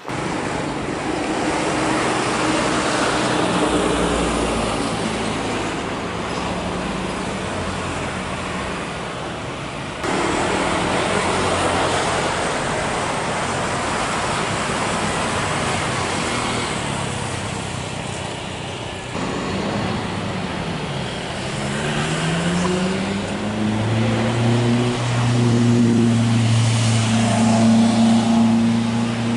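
Jet airliners landing, one clip after another: a steady roar of jet engines and rushing air, broken by sudden changes where the clips cut. In the last third a Boeing 777's engine hum glides in pitch and then holds loud and steady as it touches down.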